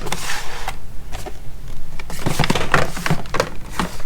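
Packaging and boxed tools being handled: a brief rustle, then a run of irregular knocks and clatters as items are lifted out of a cardboard shipping box and set down.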